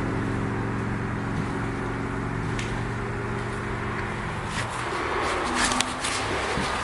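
A steady low hum with several held tones, which fades out about four seconds in, then a few faint knocks inside the house near the end, the kind taken for someone moving upstairs.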